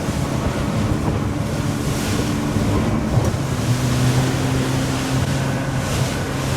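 Motorboat engine running steadily while under way, its hum changing pitch slightly about halfway through, with wind rushing over the microphone and water noise from the moving boat.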